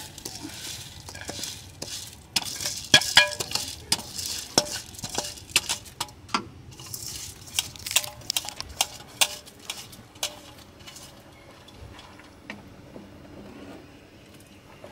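Drained rice tipped from a stainless-steel colander into a pot of simmering stock, with a wooden spoon scraping and knocking against the metal colander and pot, giving a run of clinks and knocks, some ringing briefly. The knocks die away near the end, leaving quieter stirring.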